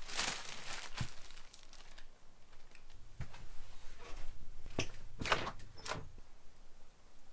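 Plastic carrier bag rustling and crinkling as a hand rummages in it, then a few sharp knocks and clicks as a door is unlatched and swung open.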